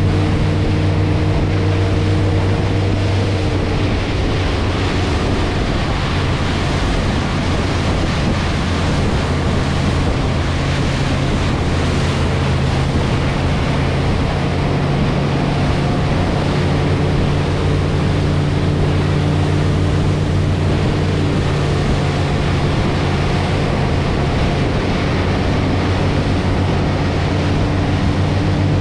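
Motorboat engine running steadily at towing speed, a steady low drone, under the continuous rush of the wake and wind.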